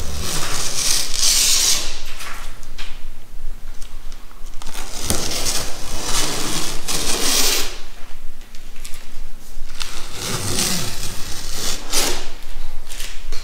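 Fiberglass-reinforced strapping tape being peeled off the glued miter joints of a pine box beam: a ripping, tearing sound in several long pulls with short pauses between.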